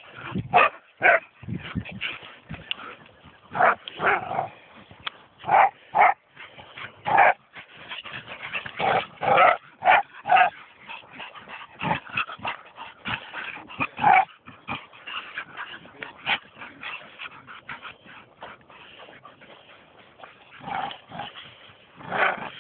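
Two dogs tugging at a stick, making short, irregular growls, whines and yips, one of them sounding knackered. The noises come thick and fast at first, then thin out and fade after about fourteen seconds, with a few more near the end.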